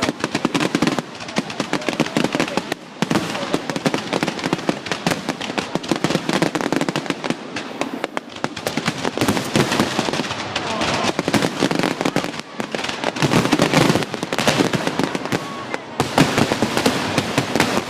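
Fireworks display: a dense, continuous barrage of rapid crackling bangs and pops, with a brief lull about two seconds before the end.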